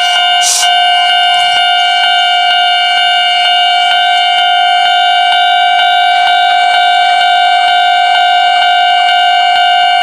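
Electronic warning bell of a Japanese railway level crossing ringing steadily, the alarm that a train is approaching. A brief hiss about half a second in.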